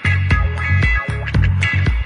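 Music with a steady beat over a heavy bass line.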